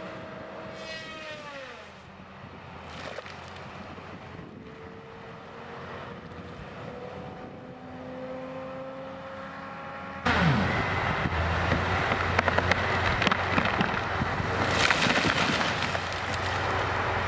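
Heavy tree-clearing machinery running: an engine's pitch drops about a second in, a slowly rising whine follows, and about ten seconds in a much louder, rougher machine noise starts suddenly and carries on.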